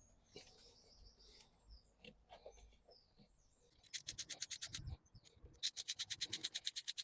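Hand ratchet clicking in quick, even strokes, about nine a second, in a short run and then a longer one, as bolts holding the new coil pack on a 1.6 petrol Vauxhall Astra engine are driven in.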